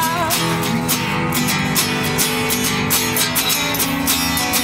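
Two acoustic guitars strumming chords in an instrumental passage of a live folk song, with a regular strumming rhythm. A held sung note with vibrato trails off just at the start.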